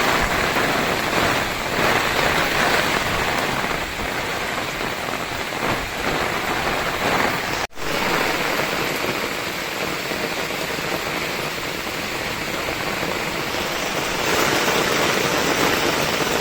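Heavy rain falling steadily in a storm, as an even hiss, with a split-second break about eight seconds in.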